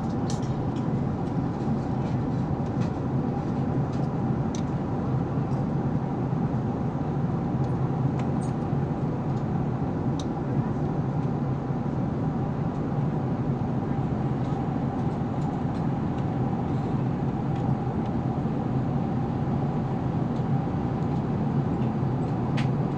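Steady cabin noise of an Airbus A380 in flight: an even low rumble of airflow and engines, with a faint steady hum above it.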